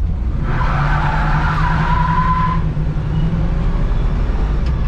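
Car engine running hard under full throttle while a single tire breaks loose and squeals against the pavement for about two seconds, then the squeal dies away and the engine keeps rumbling. Only one tire spins, a one-wheel peel.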